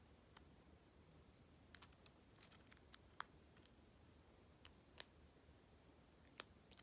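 Faint, irregular small clicks of a short-hook lock pick working the pins and warding inside a six-pin Master Lock 410 padlock, about a dozen in all, the sharpest about five seconds in.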